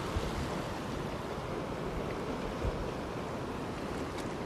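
Steady rush of sea and wind at a rocky shoreline: small waves washing against the rocks, with wind buffeting the microphone in low rumbles.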